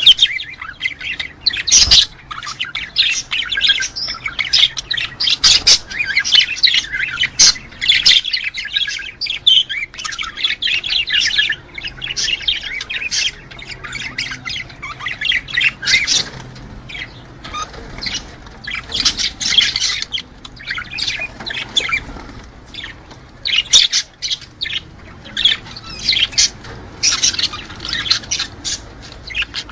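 Budgerigars chattering and warbling nonstop, with rapid chirps and sharp squawks in among them. This is the busy chatter of budgies in breeding mood.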